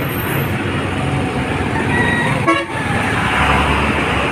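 Busy road traffic running steadily, with a vehicle horn tooting.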